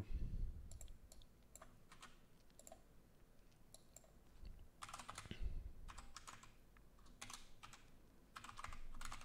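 Faint typing on a computer keyboard: scattered keystrokes coming in short runs, busiest about five seconds in and again near the end.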